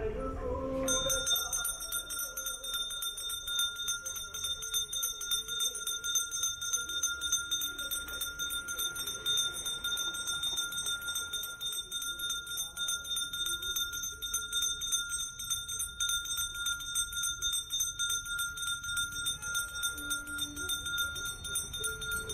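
Puja hand bell (ghanta) rung rapidly and without pause during an aarti, starting about a second in: a continuous shimmer of fast strokes and high ringing tones.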